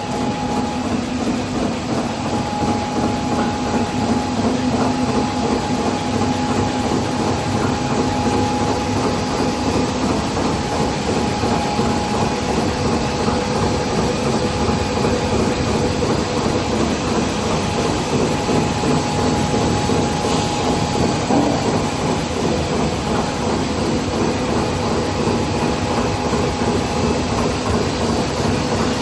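Flexographic printing press with a rotary die-cutting unit running: a steady, rapid mechanical clatter with a constant whine underneath.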